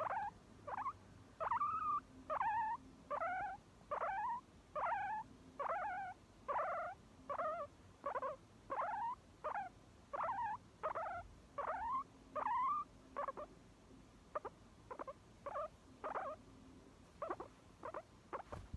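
Guinea pig squeaking over and over, a string of short calls that each bend in pitch, coming about one to two a second. After about 13 seconds the calls turn shorter and more spaced out.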